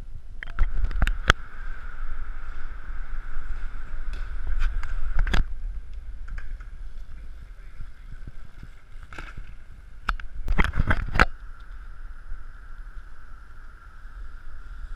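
BMX bikes ridden on concrete, heard on an action-camera microphone: steady rumble of tyres and wind, with sharp clacks of landings and impacts, a few in the first second or so, one a little after five seconds, and a quick cluster around ten to eleven seconds.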